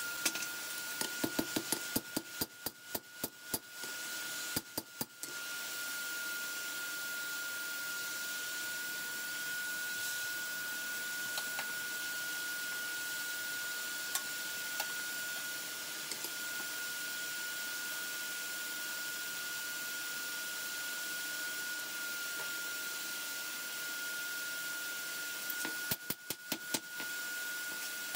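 Forge running with a steady rushing hiss and a thin, steady high whine. Quick runs of sharp metal clicks and clinks come in the first few seconds and again near the end, as steel is handled at the anvil.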